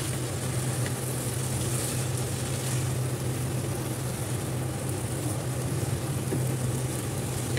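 Cauliflower and potatoes sizzling as they are stirred with a wooden spatula in a nonstick kadai, over a steady low hum.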